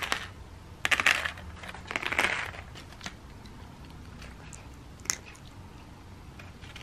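Pieces of dry cat kibble dropped onto paper plates, with short rattling clicks and rustling in the first couple of seconds, then a cat crunching the kibble, faint with occasional ticks.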